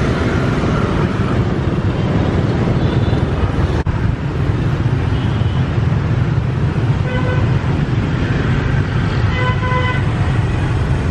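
Busy city street traffic of motorbikes and cars running steadily past. A vehicle horn honks twice in the second half, the second honk longer.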